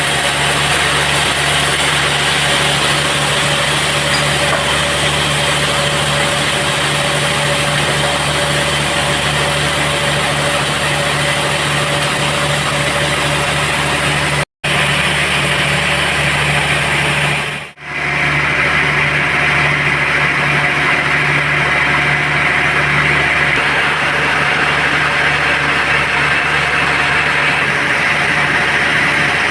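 Sawmill band saw running steadily with a constant machine drone, cut off abruptly about halfway and dipping again briefly a few seconds later.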